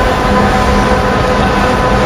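G class diesel-electric freight locomotive passing close by at the head of a container train, its engine running with a loud, steady rumble and a steady whine over it.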